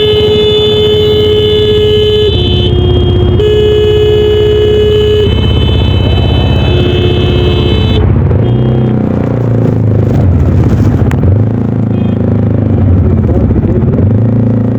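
A vehicle horn sounds long and loud, stepping between a higher and a lower pitch, for about the first half. Then the Voge 300DS motorcycle's engine takes over, its pitch rising as it accelerates, easing off briefly and pulling up again.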